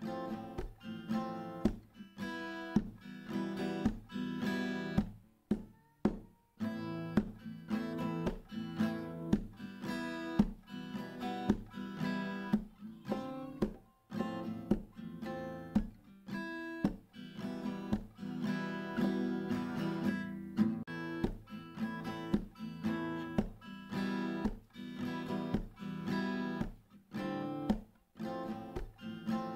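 Background music on acoustic guitar: a steady run of plucked notes.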